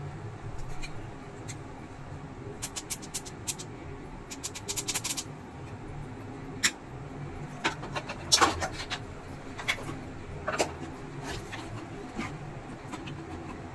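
Scattered small clicks and taps from a screwdriver and the plastic parts of an induction cooker's switch panel being handled, some in quick runs, with the loudest knock a little past eight seconds in, over a steady low hum.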